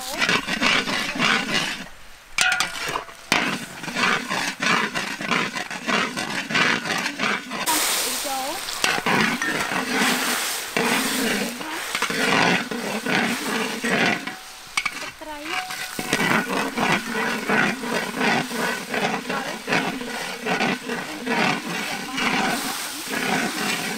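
Metal spatula scraping and stirring curry paste frying in oil in a large wok, with a steady sizzle and repeated scrapes of metal against the pan.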